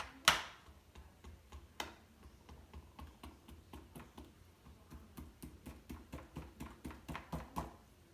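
Irregular run of short clicks and taps from a silicone spatula and a disposable foil roasting pan as herbed butter is spread over a raw turkey. There are a few sharp clicks near the start, then a quicker run of small ones later.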